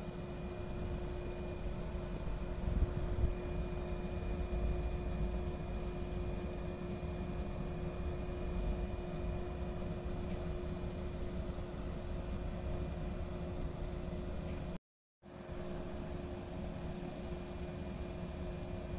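Steady hum of standing electric trains' equipment, with a few constant tones over a low, uneven rumble. The sound cuts out completely for about half a second around three-quarters of the way through.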